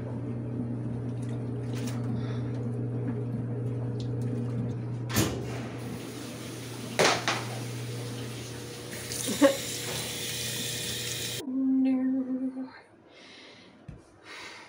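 Top-loading washing machine running with a steady hum and water noise, broken by three sharp knocks. The sound cuts off abruptly about eleven seconds in, followed by a brief low tone.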